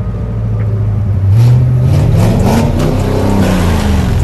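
A car engine revs up and back down, loud, through its exhaust. The pitch climbs for about a second and a half, then falls away near the end.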